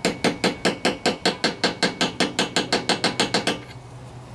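Quick, even hammer taps on a steel socket used as a driver, seating a new crankshaft oil seal into a Tecumseh lawnmower engine, about seven taps a second, stopping after about three and a half seconds.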